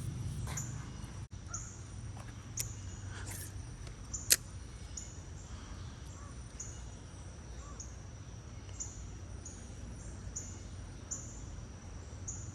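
Outdoor ambience: a short, high chirp repeating about once a second over a steady low rumble, with a few sharp clicks, the loudest about four seconds in.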